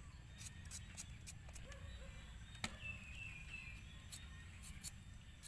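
Raw potatoes being peeled with a metal vegetable peeler: short, faint scraping strokes at irregular intervals over a low steady rumble.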